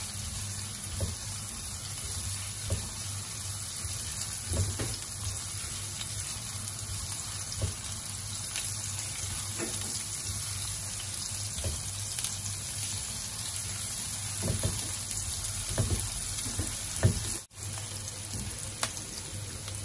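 Sliced shallots sizzling steadily in hot oil in a non-stick wok, stirred with a silicone spatula that gives a few light scrapes and knocks against the pan. The sizzle drops out for an instant near the end.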